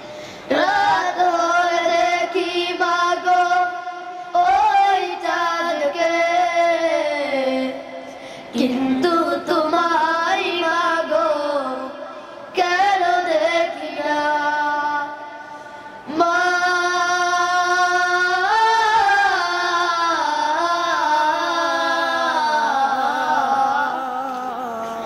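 Young boys singing an Islamic song in Bengali about mothers, in long, slowly bending phrases with short breaks between them.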